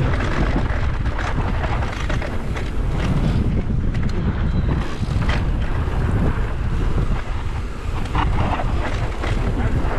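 Heavy wind buffeting on the microphone: a loud, steady low rumble with scattered brief crackles.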